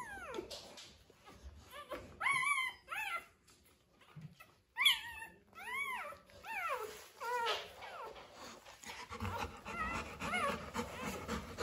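Newborn Rottweiler puppies whimpering and squealing, a string of short high cries that rise and fall in pitch, about six of them between two and eight seconds in. Near the end, fainter cries over a low rustling.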